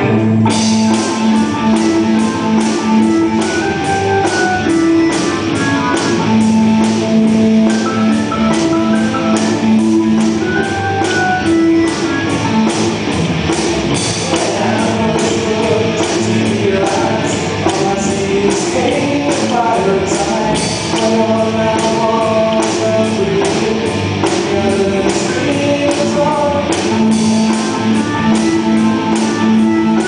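Rock band playing live: guitar over drums with a steady beat.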